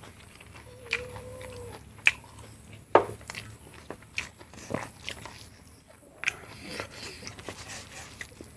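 Close-miked eating sounds of a person chewing boiled pork and rice, with several sharp mouth clicks and smacks.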